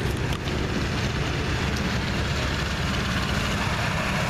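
Heavy diesel engine running steadily under a constant broad rushing noise, with a few sharp clicks right at the start.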